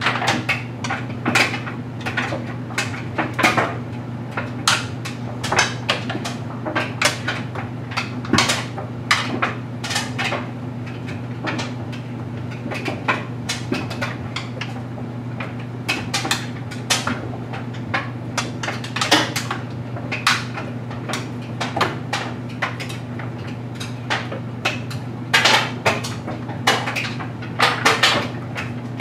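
LG Mega Capacity clothes dryer running with a steady low hum as its drum tumbles a load of stuffed animals and toys, which knock and clatter against the drum several times a second in an uneven rhythm.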